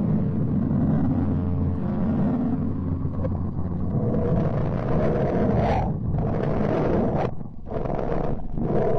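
Space-audio sonification presented as the sound of the planet Mercury: a steady low hum under a rough rumbling drone. In the second half the rumble grows brighter and cuts out abruptly and comes back three times.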